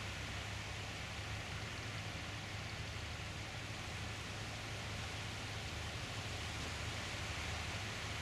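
Steady beach ambience: an even hiss with a low rumble beneath it and no distinct events.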